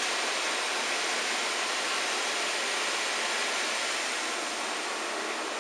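A steady, even hiss, with no other sound standing out from it.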